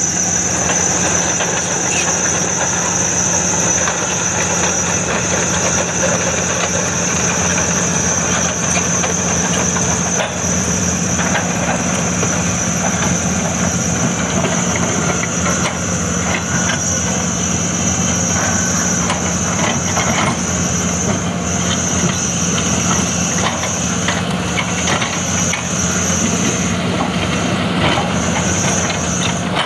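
Cat 320D long-reach excavator's six-cylinder diesel engine running steadily under load as the long arm digs and swings, with a steady high-pitched whine over it and occasional knocks.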